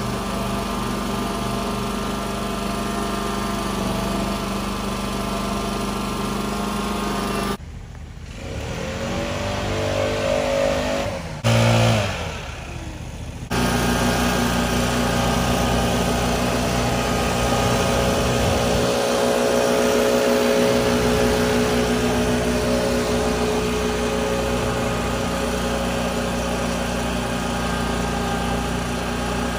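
Small engine of lawn-care equipment running steadily at working speed. The sound changes abruptly for several seconds about a third of the way in, with a rising engine note and a brief loud spike, then the steady running returns.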